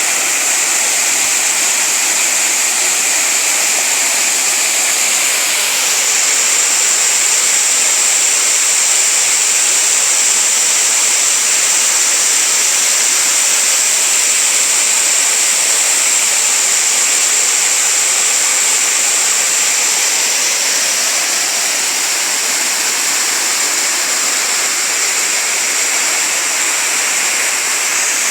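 Small waterfall and cascading stream: a steady rushing of falling and running water.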